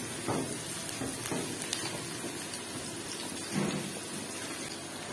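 Sliced onions sizzling in hot oil in a non-stick wok, shallow-frying toward light pink, with a few soft strokes of a silicone spatula stirring through them.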